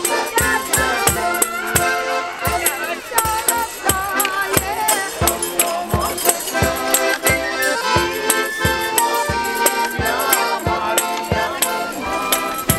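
Live Ukrainian folk band of accordion, violin and drum playing an instrumental tune with a steady drumbeat, with tambourines shaken along.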